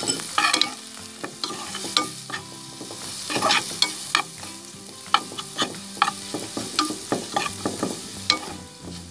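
Sliced onions and ground spices frying in oil in a stainless steel pan, sizzling, while a spatula stirs them, scraping and clicking against the pan bottom in quick irregular strokes.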